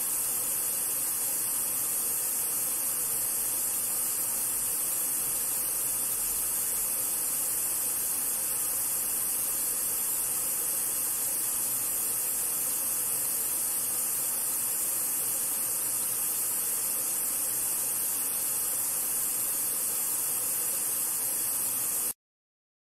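White-noise test signal played through a Sony SRS-HG10 Bluetooth speaker with Extra Bass mode on: a steady hiss, strongest in the highest treble, that cuts off abruptly near the end.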